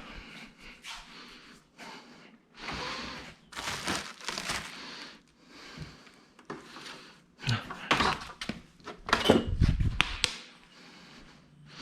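Irregular handling sounds of assembly: rustling and scraping, then a few sharp knocks and a dull clunk near the end as parts are moved and fitted.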